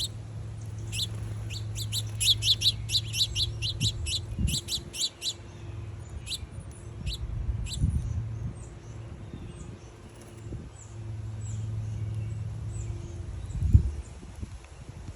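Small birds chirping at a feeder: a quick run of short, high chirps, about five a second, in the first few seconds, then scattered fainter calls. A low hum comes and goes underneath, and there are a few dull low thumps, the loudest one near the end.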